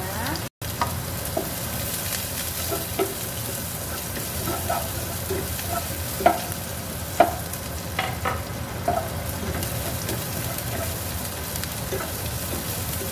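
Shallots sautéing in oil in a small saucepan: a steady frying sizzle with a spatula stirring, scraping and knocking against the pan in scattered clicks.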